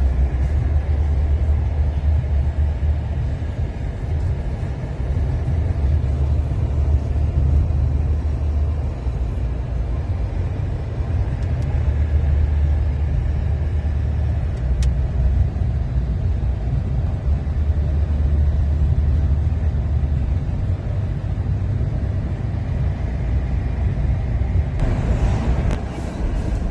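Steady low rumble inside the cabin of a Chevrolet Silverado pickup with a 5.3-litre V8: engine and road noise.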